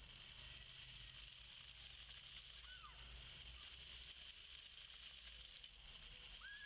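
Faint steady hiss of a ground-level fountain's water jets spraying onto wet paving stones. Two brief faint high calls come through, one about three seconds in and one near the end.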